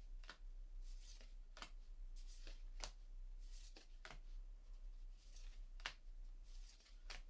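Faint papery slides and flicks of MetaZoo trading cards being moved one by one through a hand-held stack, about a dozen short strokes at roughly one or two a second.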